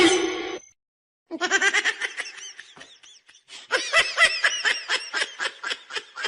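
Laughter in rapid, rhythmic ha-ha pulses, about four to five a second, in two long runs after a brief cut to silence about half a second in.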